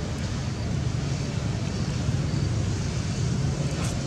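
Steady low rumbling background noise, with a faint click near the end.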